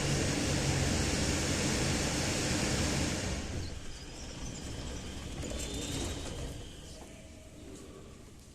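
81-717 series metro car heard from inside: loud running noise that drops away sharply about three seconds in, then fades further near the end.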